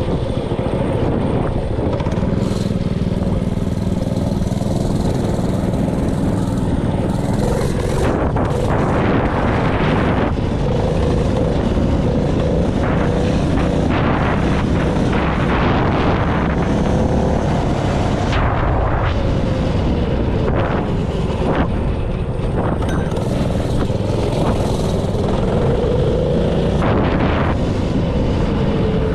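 Stage 1 Honda GX160 single-cylinder four-stroke engine on a mini bike running while ridden, its pitch rising and falling again and again as the throttle is opened and eased off.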